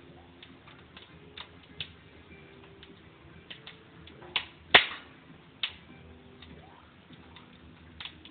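Wood fire crackling in a Wamsler fireplace stove: irregular sharp pops and snaps, the loudest about halfway through, over a faint steady background.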